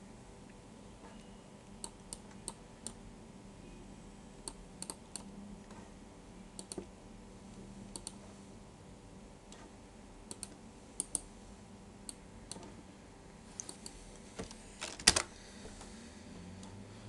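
Sparse clicks of a computer mouse and keyboard, with a short run of typing near the end that finishes on one loud keystroke. A faint steady hum lies under it.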